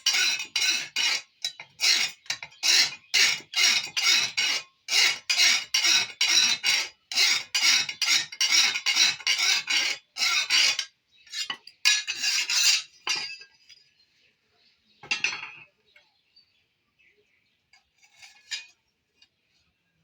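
Blacksmith's hammer striking metal on an anvil in a steady run of ringing blows, about two to three a second, stopping about eleven seconds in. A few scattered strikes and faint clinks follow.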